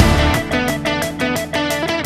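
Background music led by guitar over a bass line, with a steady beat.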